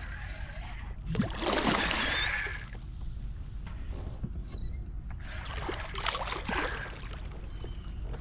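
Hooked redfish thrashing at the water's surface beside a kayak, in bursts of splashing: the loudest about a second in, another about five seconds in.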